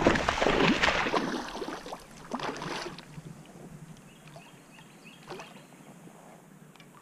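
Hooked bass splashing and thrashing at the water's surface for about the first three seconds, then quieter water movement as it is reeled toward the kayak.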